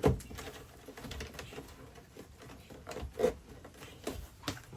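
Irregular clicks and knocks of an RV power converter being pushed and worked by hand into its tight mounting bay, snagging on its wiring; a sharp knock right at the start and another about three seconds in.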